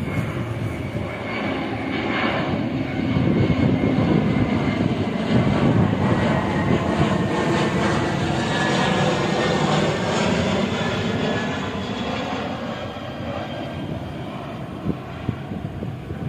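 Jet airliner flying past, its engines a continuous rushing noise that swells through the middle and then fades away.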